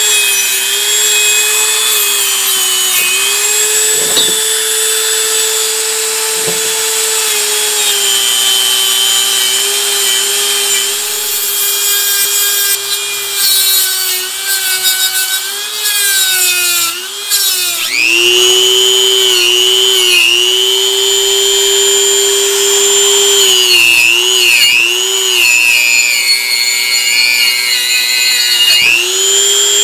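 Dremel rotary tool spinning a soft buffer wheel against a painted wheel hub: a steady high motor whine that dips in pitch several times, mostly in the second half. The wheel is buffing paint off the hub's seating surface.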